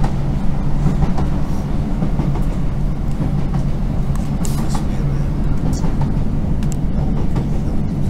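Inside a Class 156 Super Sprinter diesel multiple unit: the steady low drone of its underfloor Cummins diesel engine, with faint scattered clicks and rattles.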